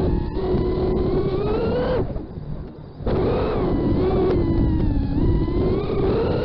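FPV quadcopter's brushless motors and propellers whining under throttle, the pitch climbing and then dropping off sharply about two seconds in as the throttle is cut. About a second later they come back up, and the pitch dips and rises again with the stick.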